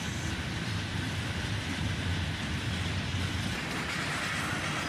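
Freight train cars rolling past on the rails: a steady, even noise of steel wheels on track.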